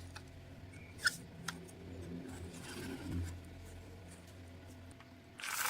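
A low steady hum with a few faint clicks and light rubbing noises, two sharper clicks about a second in.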